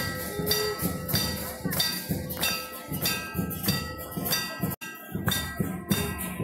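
Temple bells struck in a steady rhythm, about three strokes a second, with drum beats underneath: the ritual accompaniment of an evening aarti. The sound drops out briefly about five seconds in, then the bells carry on.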